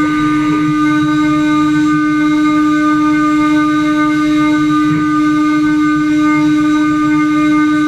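CNC router spindle running with a steady, unchanging whine.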